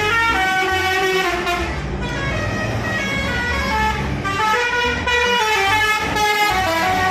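Indonesian 'telolet' bus horn playing a tune of stepped, changing notes over a low rumble.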